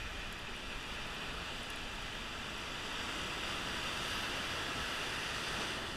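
Rough surf breaking and washing over rocks, a steady rush of whitewater that swells a little about halfway through.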